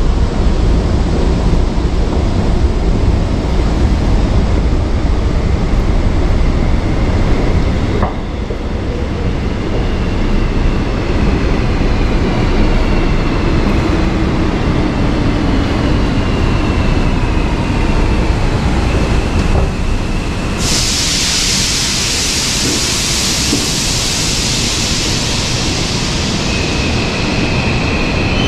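Seoul Subway Line 8 (Byeollae Line) train arriving at an underground platform behind screen doors. A steady low rumble runs under gliding motor whines in the middle. About two-thirds through comes a sudden loud hiss, and a high steady squeal follows near the end as the train slows.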